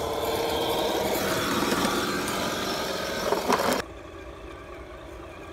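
Motor and gear drivetrain of a homemade six-wheel-drive RC truck whining as it drives. The pitch drops partway through, the sound swells, and it cuts off abruptly about four seconds in.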